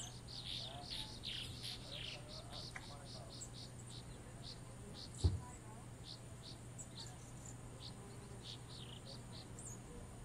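Rainforest wildlife ambience: a steady high insect whine with many short high chirps, thickest in the first two seconds and scattered after. One dull thump about five seconds in.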